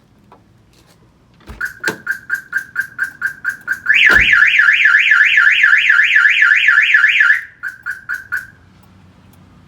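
Viper car alarm siren going off on test: a run of rapid beeps at one pitch, about five a second, then a loud fast warble rising and falling about four times a second, then a few more beeps before it stops. Two dull knocks sound under it, about two seconds in and again as the warble starts.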